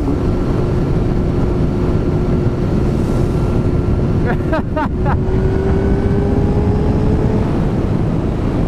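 Motorcycle engine running at steady speed under way, its tone slowly rising, with heavy wind rumble on the microphone.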